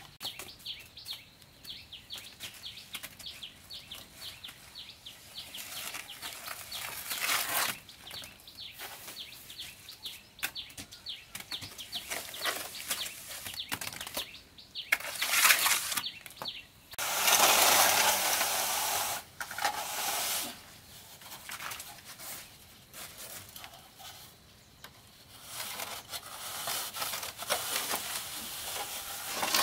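Plastering tools scraping on wet cement render: a straightedge rubbed across the wall and a trowel scooping mortar, in many short, rough strokes. A louder, longer scrape comes a little past halfway.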